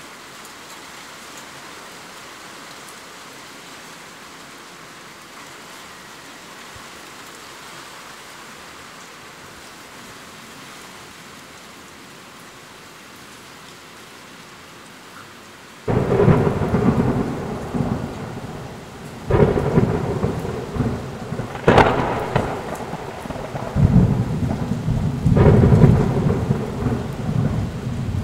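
Heavy rain downpour falling steadily, then a thunderstorm breaking in: a little over halfway through a loud thunderclap hits suddenly and rumbles on, followed by several more cracks and rolls of thunder.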